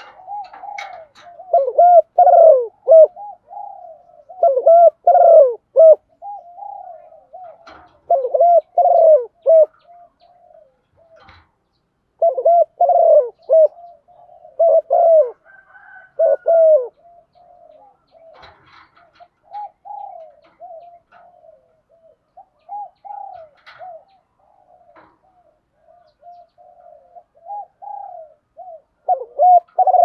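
Female spotted dove cooing in repeated phrases of several coos each, the call keepers play to rouse male doves. The phrases come every few seconds, loud through about the first seventeen seconds and softer after that.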